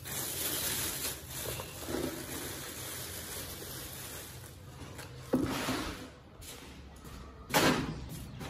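Plastic bags rustling and crinkling as poultry feed is handled, with two short knocks, about five and a half and seven and a half seconds in.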